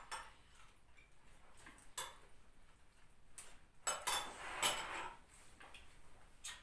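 Cutlery and dishes clinking at a meal: a few scattered sharp clinks, then a denser clatter of knocks and scraping about four seconds in.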